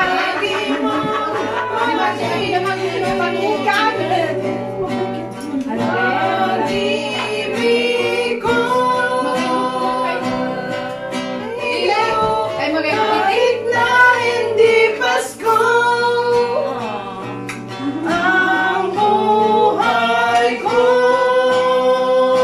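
A song: a voice singing long held notes over guitar accompaniment.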